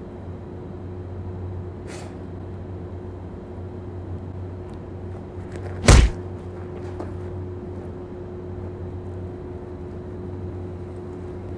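A steady low hum, with a light click about two seconds in and a single loud, sharp impact about six seconds in.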